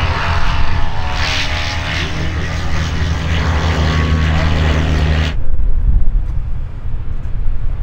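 A propeller aircraft's piston engine running steadily, with faint voices under it. The sound cuts off abruptly about five seconds in, leaving an uneven low rumble.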